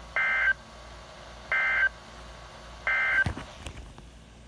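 Three short bursts of NOAA Weather Radio SAME digital data tones, the end-of-message code that closes an Emergency Alert System alert. Each burst lasts about a third of a second, and they come about 1.4 s apart. A low thump and a click follow just after the third burst.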